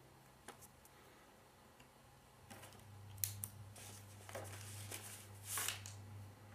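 Faint handling of paper and a pen at a table: a few soft clicks, then brief rustling swishes of paper and pen on paper. A low steady hum comes in about two and a half seconds in.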